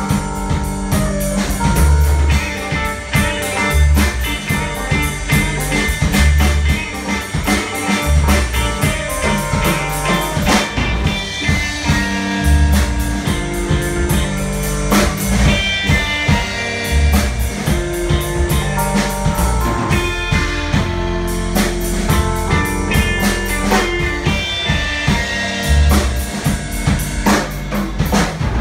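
Live band playing an instrumental passage, with a drum kit keeping a steady beat under guitar.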